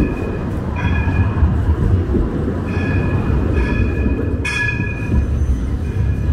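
City trams running past close by on street rails: a steady low rumble with high ringing squeals that come and go, and one sharp knock about four and a half seconds in.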